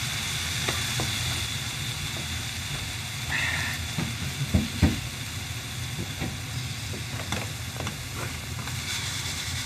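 Yakisoba noodles frying in sesame oil in a nonstick pan over a portable gas stove: a steady sizzle with the burner running underneath. Two sharp knocks come about halfway through.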